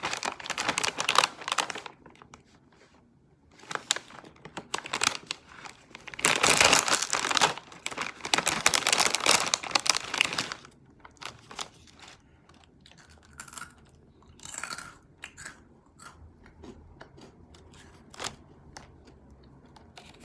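A foil-lined plastic snack bag of Nongshim Honey & Apple twist snacks crinkling and tearing open in several loud bursts, loudest for about four seconds in the middle. After that come quieter rustles and small crisp snaps as pieces are taken from the bag.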